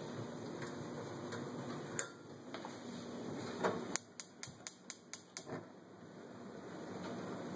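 BlueStar range-top gas burner hissing steadily, then dying away; a couple of louder clicks, then the electronic spark igniter clicks about seven times in a quick even run, about five a second, and the burner catches, its flame hiss building back up.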